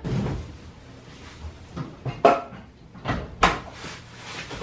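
A few knocks and bumps of kitchen cabinet doors and appliances being shifted, with a dull thud at the start and the loudest sharp knock about three and a half seconds in.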